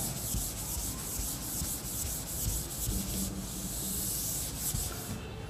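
Chalkboard duster rubbing back and forth across a chalkboard, erasing chalk writing with a scratchy rubbing noise that stops near the end.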